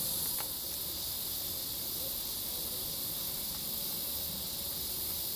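Steady high-pitched chorus of insects, an unbroken shrill buzz with no break or change.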